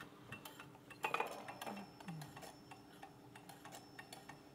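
ELENKER low-temperature Stirling engine sitting on a mug of hot tea, running, its flywheel and crank mechanism giving a faint, light ticking a few times a second. A brief, louder rustle comes about a second in.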